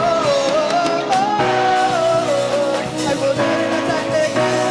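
Church worship music: a voice singing a wavering hymn melody over a band's sustained instrumental chords.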